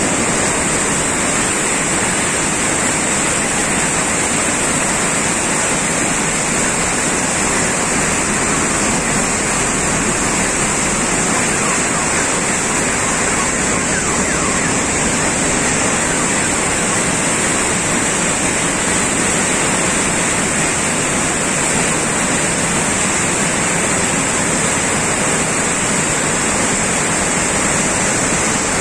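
A river in flood: fast muddy floodwater rushing and churning in a steady, unbroken noise, with a thin steady hiss high above it.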